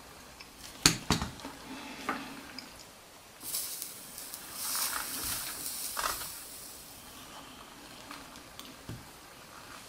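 Hot soldering iron sizzling and hissing on the foiled edge of a glass nugget as the solder melts, for about three seconds in the middle, after a few sharp clicks near the start.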